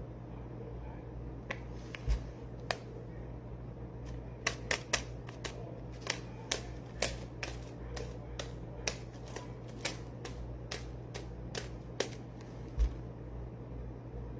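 Irregular sharp clicks and light taps, a couple of dozen of them, over a steady low hum.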